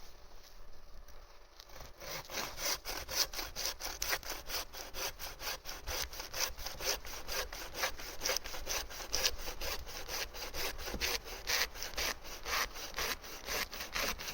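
Hand saw cutting through wood in quick, even back-and-forth strokes, starting about two seconds in.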